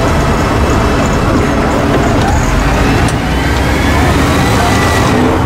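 Heritage tram running slowly on its rails, a steady rumble with a faint rising whine from about halfway through.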